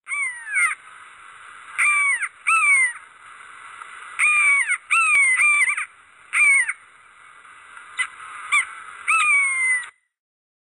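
A large bird calling, about ten calls that each fall in pitch, coming singly and in quick pairs, stopping shortly before the end.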